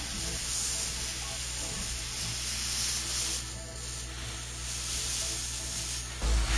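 Haas CNC vertical mill engraving a plastic sheet dry with a 1/16-inch ball end mill: a steady cutting hiss over a low hum, under soft background music. A heavy beat in the music comes back in near the end.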